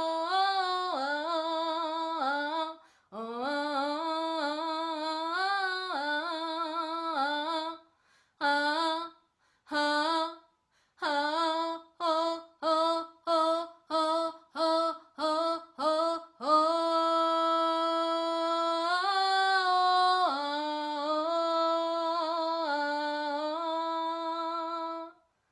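A woman's voice singing wordlessly, unaccompanied: wavering melodic phrases, then a run of short detached notes about two a second, then one long held note that stops near the end.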